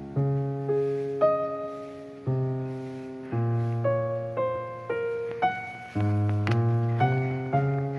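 Background piano music: a slow melody of single notes over held low chords, each note struck and fading away.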